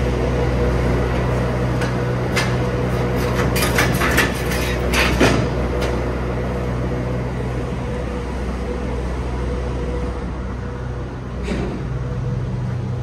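MAN TGX truck engine running steadily, with a cluster of sharp clicks and knocks about two to six seconds in and another near the end.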